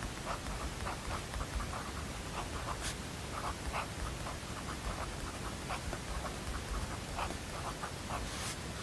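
Handwriting on paper: quick, irregular scratchy strokes, some in short runs, over a steady hiss.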